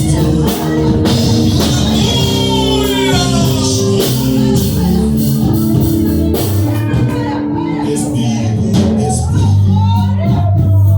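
A band playing a song with singing over drums and sustained instrument chords.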